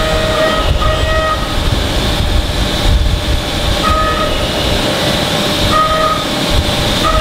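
Factory machinery running: a steady, loud rumbling noise with a high whine that cuts in and out several times.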